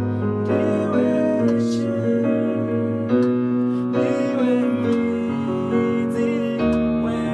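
Slow keyboard music: sustained electric-piano chords over a held bass note, the chord changing every second or two.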